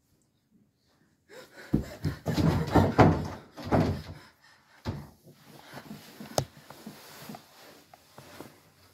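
Wooden interior door being banged and rattled at its knob: a quick run of loud knocks in the first few seconds, then fainter rattles and one sharp click.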